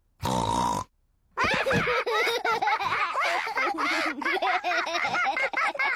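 Cartoon children's voices laughing and giggling for several seconds, after a brief pitched vocal sound just at the start.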